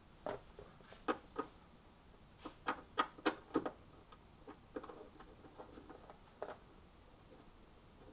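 Scattered sharp metal clicks of an 8 mm socket wrench loosening the taillight's mounting bolts, most of them bunched together a few seconds in, then fainter ones.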